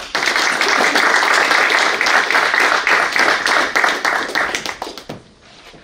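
Audience applauding, dense and steady, then dying away near the end.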